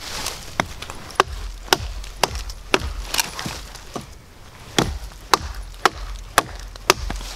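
Reapr Tac Bowie knife, a 7-inch stainless steel blade, chopping into a pine log: about a dozen sharp chops, roughly two a second, with a short pause near the middle.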